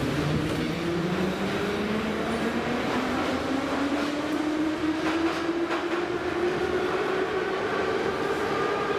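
Metro train accelerating away from a station: the traction motors' whine rises steadily in pitch over the rumble of the wheels, with a few clicks from the rail joints.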